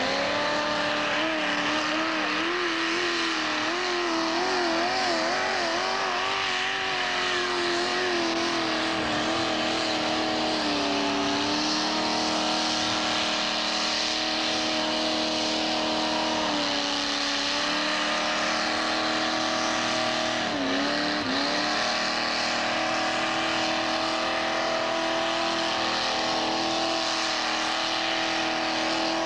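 Mud racing vehicle's engine held at high revs the whole way down the mud track, its pitch wavering and dipping briefly a few times before settling back to a steady high note.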